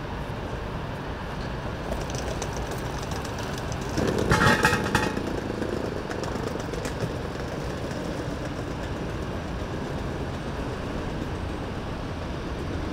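An ambulance van driving past, its engine and tyres over steady outdoor traffic noise. About four seconds in comes a brief, loud, high-pitched sound lasting about a second, followed by a slowly falling engine note as the vehicle goes by.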